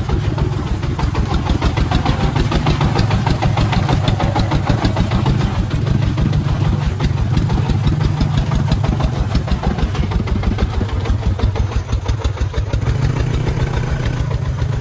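Công nông farm truck's 24-horsepower single-cylinder diesel engine chugging in a rapid, even beat as it hauls a load of sand through mud.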